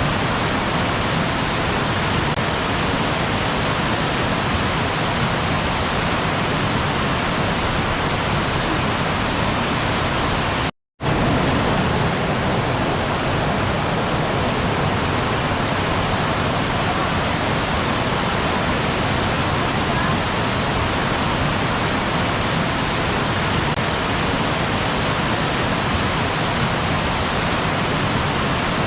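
Steady rushing of a waterfall, an even wash of falling water with no rhythm or tone. It cuts out for a split second about eleven seconds in, then resumes.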